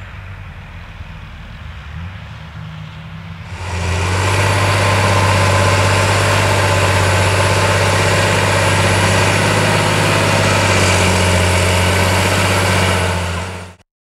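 John Deere 8210T crawler tractor's 8.1-litre six-cylinder diesel pulling a six-furrow plough through waterlogged, soft rice-field soil, heard faintly at first, then loud and close from about four seconds in. It gives a steady deep drone with a thin high whine above it, and stops abruptly near the end.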